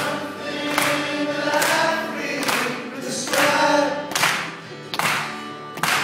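Acoustic guitar strummed live in a steady rhythm, a chord strum a little under once a second, with singing over it.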